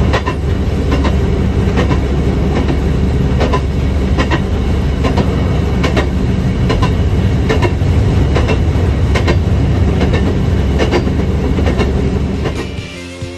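A railroad motorcar (speeder) running along jointed track: a steady engine rumble with its wheels clicking over the rail joints at a regular beat, under a second apart. Near the end it gives way to background music.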